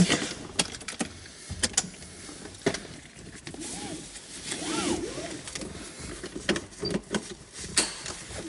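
Scattered clicks and knocks of hands working the controls inside a small convertible's cabin, with a brief swell of sound about halfway through as the ignition is switched on.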